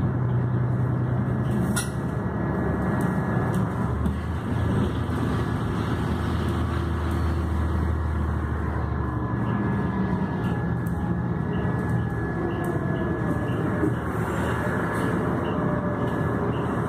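Interior of a moving city bus: steady engine drone and road noise as it drives along. A deeper engine note swells for several seconds in the middle.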